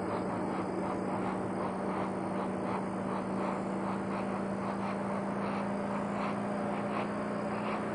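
Night-time outdoor ambience at the runway: a steady low hum with a chirping that repeats about three times a second.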